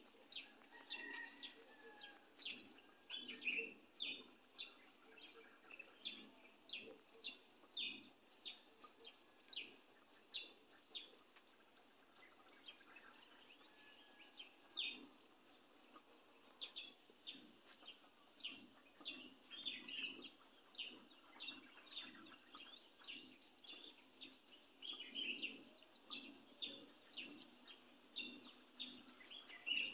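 Marker squeaking on a whiteboard as letters are written: a series of short, faint squeaks, one to two a second, with a pause in the middle.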